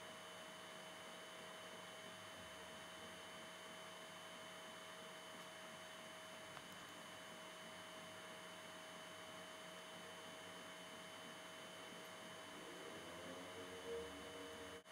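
Near silence: a faint, steady hum and hiss with a few fixed tones, and a brief faint sound near the end.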